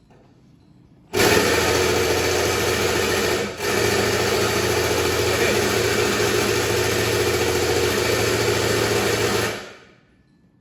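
A machine running steadily and loudly for about eight seconds. It cuts in abruptly about a second in, dips briefly, and winds down near the end.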